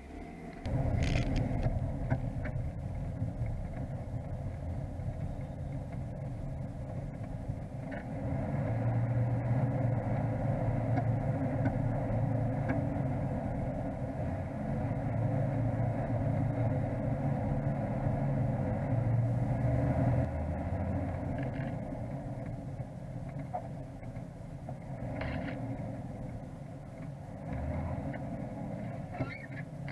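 Off-road 4x4 driving over a rough dirt and sand track: steady engine and drivetrain rumble with road noise, louder through the middle stretch, with a few light knocks from the rough ground.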